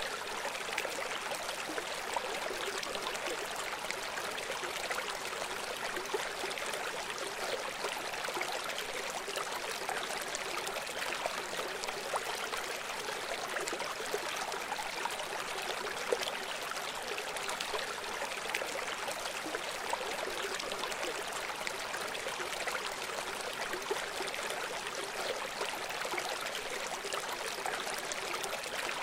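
River water flowing, a steady, even sound of running water with little bass and no breaks.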